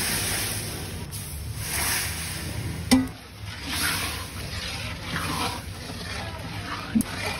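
Sugar poured into water in an iron kadai and stirred with a long metal ladle: swishing, sloshing strokes, with two sharp knocks of the ladle on the pan, one about three seconds in and one near the end, over a steady low rumble.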